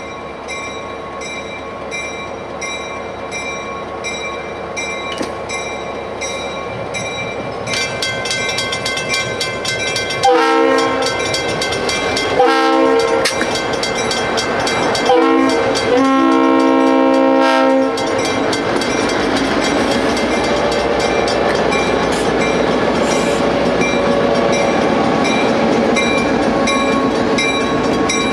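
Pennsylvania Railroad GP9 diesel locomotive approaching with its EMD 567 engine running, growing louder, then sounding its air horn about ten seconds in: long, long, short, long, the pattern used for grade crossings. The locomotive then passes and the passenger cars roll by with steady wheel clatter on the rails.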